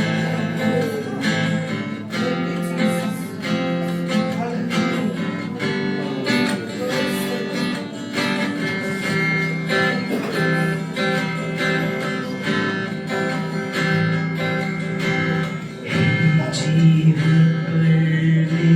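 Instrumental passage of a live worship song: a strummed acoustic guitar with the band, getting louder about three-quarters of the way through.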